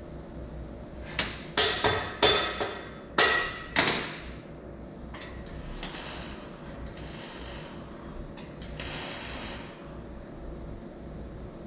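Steel square-tube frame being knocked and handled at a joint: about six sharp metallic clanks with a ringing tail in quick succession, followed by a few short hissing bursts of about a second each.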